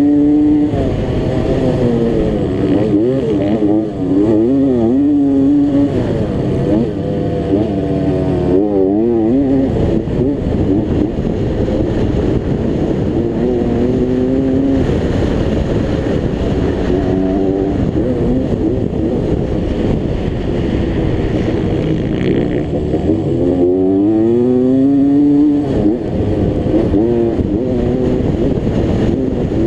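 Motocross dirt bike engine heard close up from a camera mounted on the bike, revving hard with its pitch climbing and dropping again and again as the rider works the throttle and gears through the track's straights and corners.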